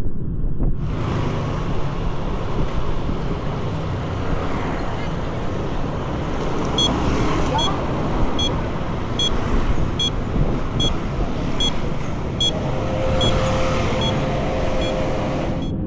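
Road traffic noise with a steady rumble. From about halfway through, a short high beep repeats a little faster than once a second.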